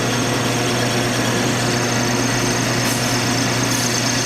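Metal lathe running steadily: an even motor hum with a thin, steady high whine above it.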